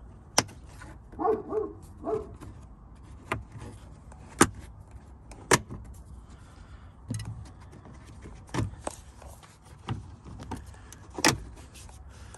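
Plastic dash trim panel on a Jeep Wrangler JK being pried off with a plastic trim tool: a series of sharp clicks and snaps as the clips let go, with rubbing and rattling of plastic in between. The loudest snap comes near the end, as the panel comes free.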